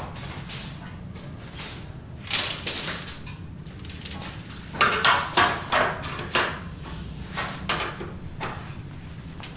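Building-site clatter: irregular knocks and bangs over a steady low hum, with a cluster of louder strikes about halfway through.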